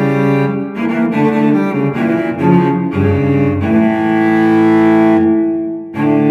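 Intro music: a low melody of short changing notes that settles into a held chord about four seconds in, fades briefly, and a new sustained chord comes in just before the end.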